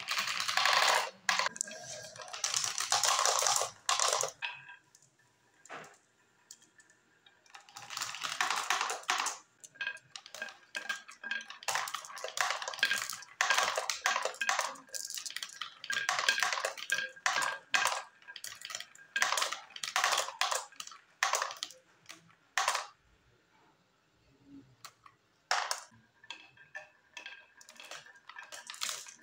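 Glass marbles rolling and clattering down a wavy wooden marble track, rattling round a plastic funnel and clinking as they drop into a plastic toy dump truck. The rattling comes in bursts with short pauses between them.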